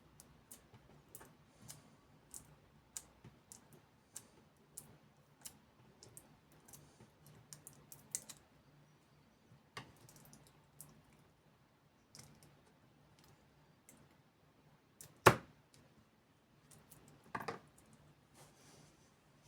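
Small repair tools clicking and tapping against the parts of an iPhone 8 Plus being taken apart: irregular light clicks, with one louder knock about fifteen seconds in and a short rattle a couple of seconds later.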